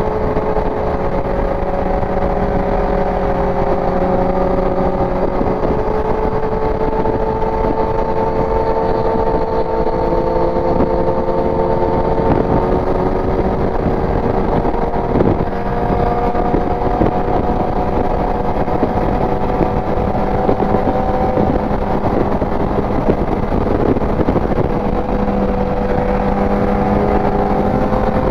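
Inline-four sport motorcycle engine running at steady cruising revs, heard from the rider's seat over a constant rush of wind and road noise. Its pitch sags slowly and then climbs again toward the end. A single sharp knock comes about halfway through.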